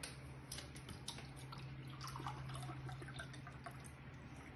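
Water poured from a plastic bottle into a small glass, faint trickling with small ticks and clinks.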